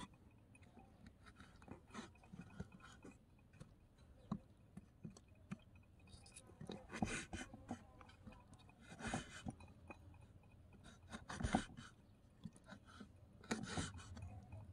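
Small knife slicing raw octopus on a miniature wooden cutting board: faint wet cuts and light taps of the blade on the wood. The cutting strokes come louder and closer together in the second half.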